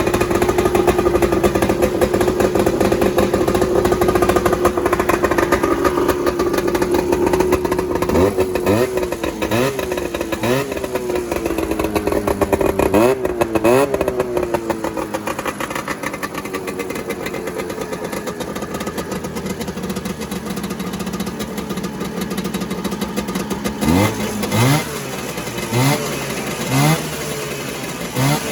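Vintage snowmobile two-stroke engine running steadily, then blipped up and down several times in quick throttle revs, with a second run of short revs near the end.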